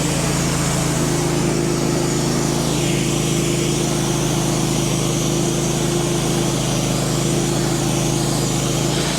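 Wood-Mizer LT15 portable band sawmill's engine running steadily at an even pitch as the blade takes a 2-inch cut off a white pine cant.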